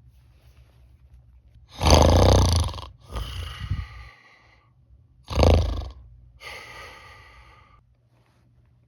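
A person snoring on purpose while wearing a nasal dilator: two loud snores on the in-breath, about three and a half seconds apart, each followed by a softer breath out. The snore vibrates in both the mouth and the nose, and the dilator has little effect on it.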